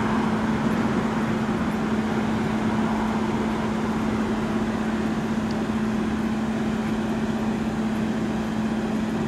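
Steady hum of an idling vehicle: a constant low drone over an even hiss, unchanging throughout.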